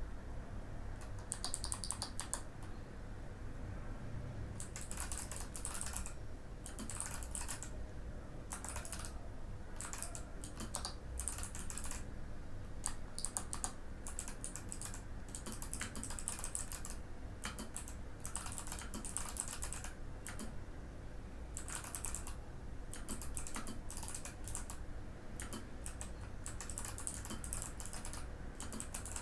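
Typing on a Mikit M65 mechanical keyboard with Kailh Box White clicky switches: rapid runs of crisp key clicks in bursts of a few seconds, broken by short pauses.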